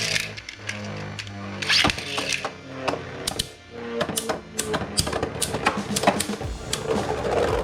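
Metal Fight Beyblade spinning tops clashing in a stadium: a rapid run of sharp clicking hits, heavier in the second half, over background music.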